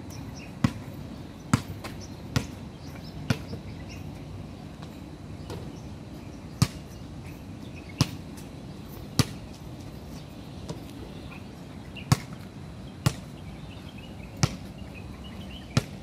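A basketball bouncing on an outdoor asphalt court: sharp, single bounces, about one a second at times with gaps of a few seconds between them, over a steady low background noise.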